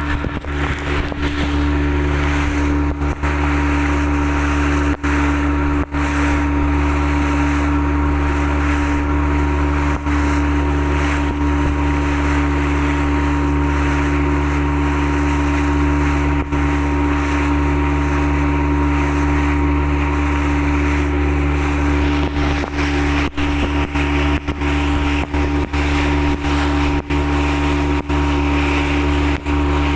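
Motorboat engine running at a steady speed, a constant loud drone.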